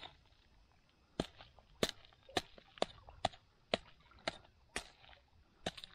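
About ten sharp knocks on dry ground, roughly two a second, starting about a second in.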